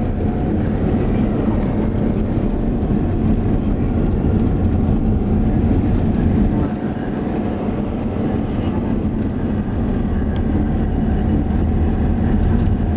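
Car driving, heard from inside the cabin: a steady rumble of engine and road noise with a faint steady hum.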